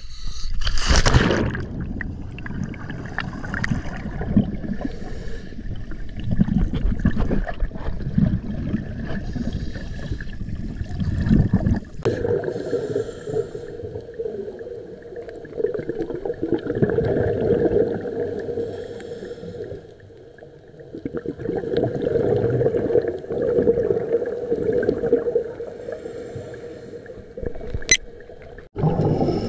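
A splash about a second in, then water noise. From about halfway, scuba breathing recorded underwater: a Scubapro regulator's exhaled bubbles gurgle in repeated surges every few seconds.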